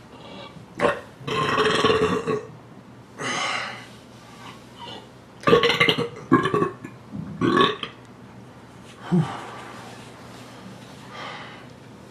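A man burping loudly again and again: a long burp about a second in, then a run of shorter ones, with a faint last one near the end.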